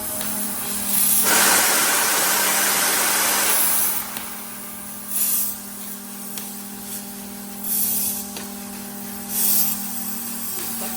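1.5 kW fiber laser sheet-cutting machine running with a steady low hum. A loud hiss of cutting gas comes about a second in and lasts nearly three seconds, then shorter hisses follow every couple of seconds as it cuts.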